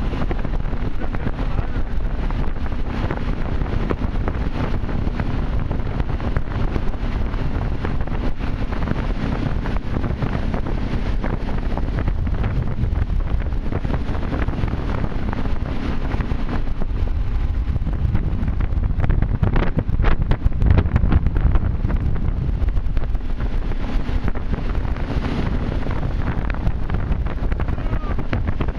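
Wind buffeting the microphone on a towboat running at speed, over the boat's engine and rushing water, with a louder, gustier stretch about twenty seconds in.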